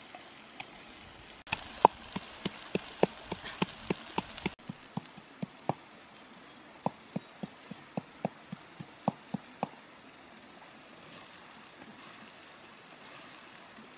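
Pestle pounding in a small clay mortar: a run of sharp knocks, about three a second, that stops near ten seconds in. A steady hiss of stream water runs underneath.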